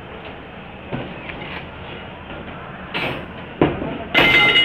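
Scattered knocks, then a brief ringing metallic clank near the end, from work on a steel rebar mesh.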